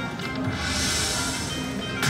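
Aristocrat Autumn Moon (Lightning Link) slot machine playing its electronic game music during a free-game spin as the reels land. A rushing hiss swells in about half a second in and holds through most of the rest.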